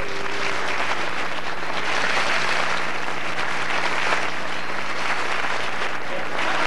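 Audience applauding a stand-up comedian's line, building up over the first two seconds and then holding steady.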